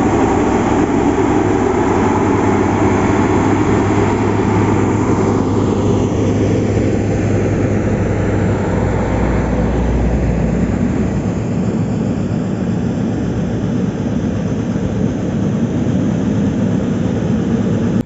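Diesel engine of a single-drum road roller running steadily while it works over a gravel road base, with passing traffic mixed in: a vehicle sweeps past about five seconds in and a deep rumble swells around ten seconds.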